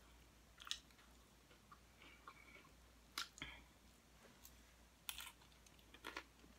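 Near silence broken by about five faint, short crunches and mouth clicks of someone chewing nachos.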